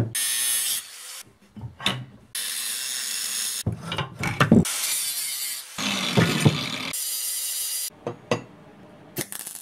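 A used car rear axle being handled and worked on a steel-topped bench: sharp metal clanks and knocks, several of them, between stretches of steady scraping, rasping noise that start and stop abruptly.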